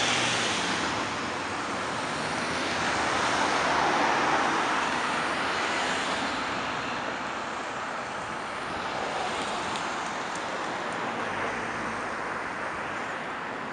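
Busy city street traffic: cars passing with a steady wash of tyre and engine noise, swelling about four seconds in and then easing.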